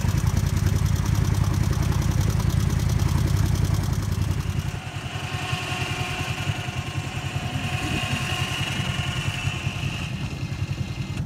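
Off-road vehicle engine running close by with a heavy, fast low throb. About four and a half seconds in, the throb eases off, leaving a quieter engine sound with a steady high whine.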